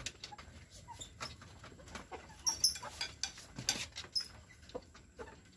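Kampung chickens (native Indonesian chickens) about 130 days old clucking, with short high chirps and scattered clicks.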